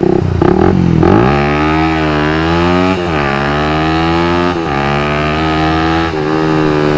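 Suzuki Satria FU 150's single-cylinder engine, fitted with an aftermarket exhaust, pulling away and accelerating hard. The pitch climbs, falls back at each upshift (about three seconds in and again a second and a half later), and climbs again.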